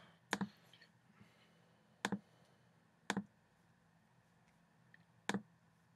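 Computer mouse clicking: four sharp clicks, each a quick press-and-release pair, spaced one to two seconds apart over a faint steady room hum.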